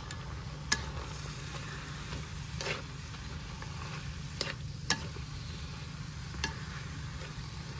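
Sliced pork and pickled cabbage stir-frying in an aluminium wok, stirred with chopsticks that click sharply against the pan about five times. A steady low hum runs underneath.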